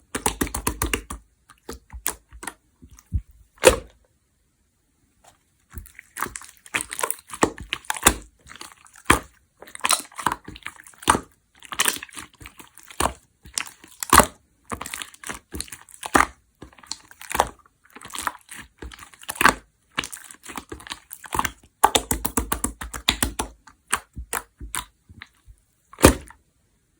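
Clear slime being squished and pressed by hand: irregular sticky crackles and sharp clicking pops, with a pause of about a second and a half near the start.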